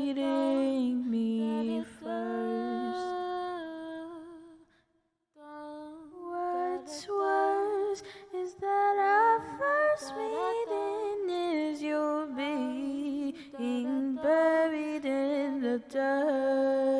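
A woman singing a slow, drawn-out melody with long held notes and quick vocal runs. She breaks off briefly about five seconds in.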